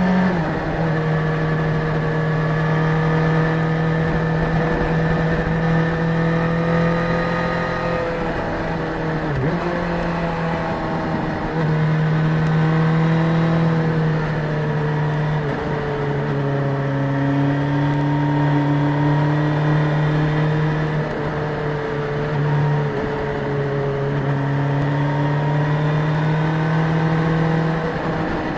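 Suzuki GSX-S1000 inline-four engine running under way at fairly steady revs, its pitch drifting slowly up and down, with a short dip in revs about a third of the way in and a few more later on.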